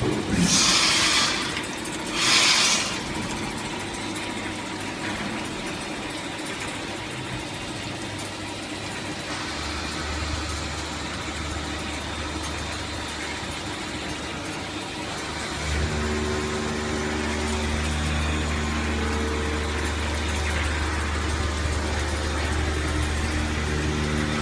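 Agie Gold 3 CNC wire EDM machine running, with two short hissing bursts in the first three seconds. A low hum joins about ten seconds in, and from about sixteen seconds a louder, steady machine hum with a pitched tone carries on.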